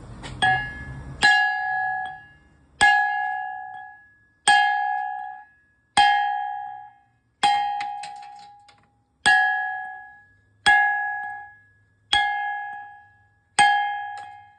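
Hammer strikes splitting a slab of black granite, about ten blows roughly a second and a half apart. Each one rings out with a clear bell-like tone that fades over about a second.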